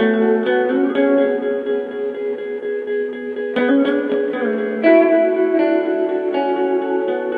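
Electric guitar played through effects in a loop-based improvisation: layered, sustained notes that change about every half second.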